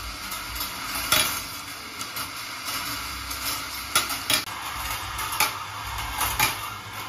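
Glass marbles rolling and rattling along a steel-wire marble run and its spiral lift, a steady rolling rattle broken by several sharp clacks as marbles knock against each other and the wire. The loudest clacks come about a second in and around four seconds in.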